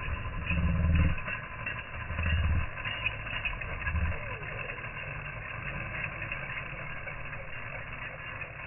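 Radio-controlled trucks running on a dirt road: a steady drone, with a few short louder bursts in the first four seconds as the throttle is opened, then steadier and quieter.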